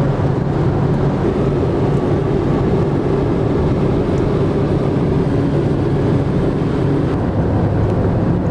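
Steady road and engine noise inside the cabin of a car driving at speed, with a low, even hum under the rumble of the tyres.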